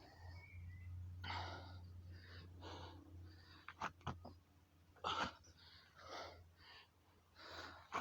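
A man's heavy, labored breathing, about six hard breaths in and out, winded near the end of a long set of burpees. A few sharp taps come around the middle of the breathing.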